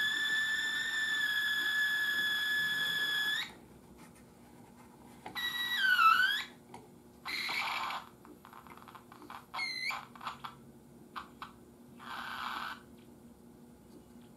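Crosley 52 regenerative radio whistling and squealing as its dial is turned: a steady high whistle for about three and a half seconds, then shorter whistles that swoop down in pitch between short bursts of static. These are the heterodyne squeals of a regenerative detector running into oscillation.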